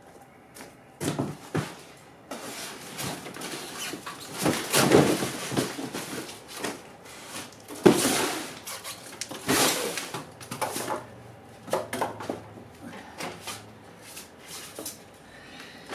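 Unpacking sounds: packaging rustling and scraping, with scattered knocks and clicks as items are lifted out of a box and set down, loudest about five, eight and nine and a half seconds in.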